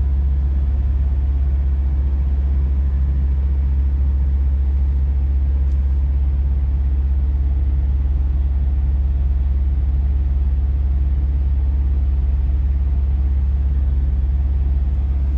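Scania truck's diesel engine pulling at steady revs up a snowy climb, heard from inside the cab as a loud, steady low drone.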